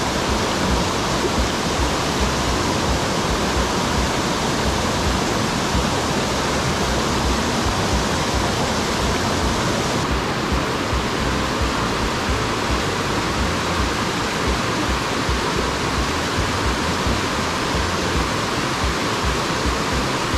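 Steady rush of a mountain headwater stream tumbling over rocks and small cascades, a loud even hiss of water, slightly duller in its highest part about halfway through.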